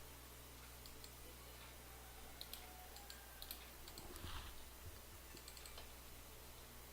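Faint, scattered computer keyboard and mouse clicks, with a brief rustle about four seconds in, over a steady low electrical hum.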